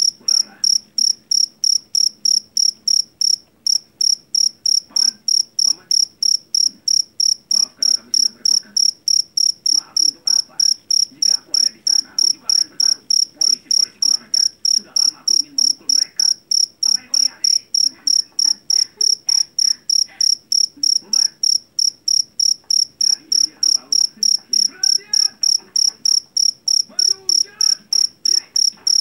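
Jeliteng field cricket (Javanese black cricket) calling: a loud, shrill chirp repeated steadily about three times a second.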